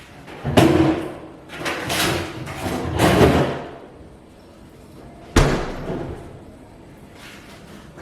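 A few bumps and thuds in the first three and a half seconds, then a single sharp slam about five and a half seconds in.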